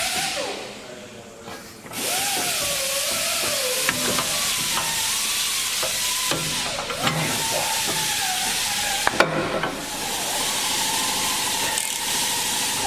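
Pneumatic shop tool running with a steady air hiss and a whining tone that wavers up and down in pitch, dropping away briefly just after the start, with a few sharp clicks around four and nine seconds in.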